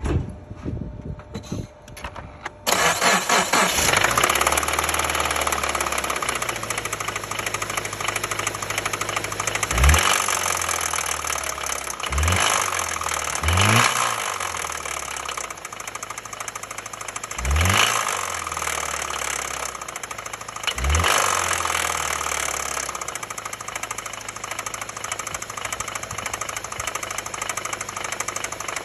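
Car engine starting about three seconds in, then idling with a knock, revved briefly five times and settling back to idle after each blip.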